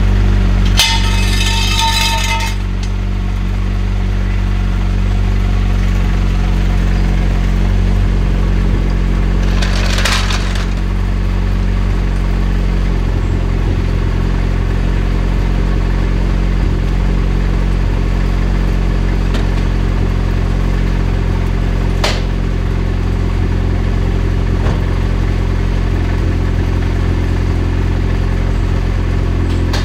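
Turbocharged Honda Civic four-cylinder idling steadily through a freshly built 2.5-inch exhaust, with a ticking from the front of the engine that the owner puts down to valves needing adjustment. A brief metallic clink comes about a second in, and there are a couple of short knocks later.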